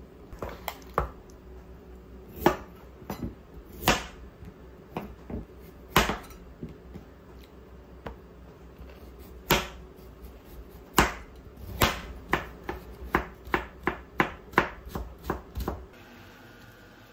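Kitchen knife slicing a carrot on a cutting board: sharp knocks of the blade hitting the board, spaced out at first, then a quicker run of about two a second that stops near the end.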